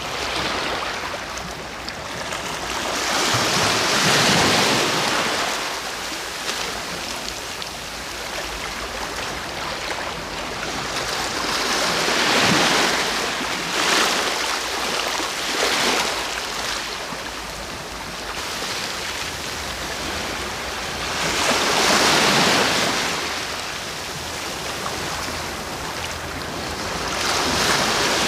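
Ocean waves breaking and washing up the shore, surging about every eight to ten seconds over a steady hiss of surf.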